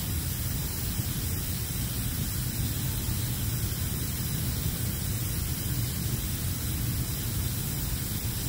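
Coleman gas stove burner running with a steady hiss under a pot of water at or near the boil.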